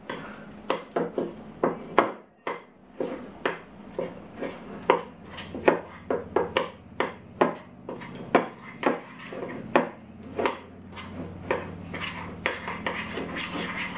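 A spoon stirring thick crème fraîche and flour in a glass bowl. It knocks and scrapes against the glass in an irregular run of sharp clicks, a few a second.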